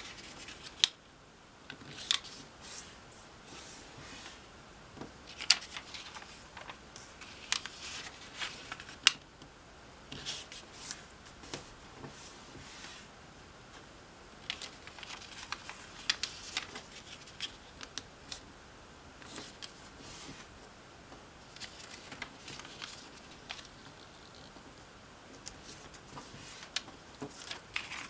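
A square of origami paper being folded and creased by hand: irregular crisp rustles and crackles, with a few sharper snaps as the folds are pressed flat.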